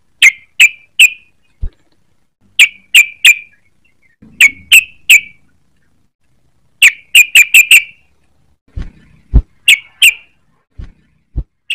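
Yellow-vented bulbul calling: short, sharp, high chirping notes in quick groups of two to five, with a few low thumps among them.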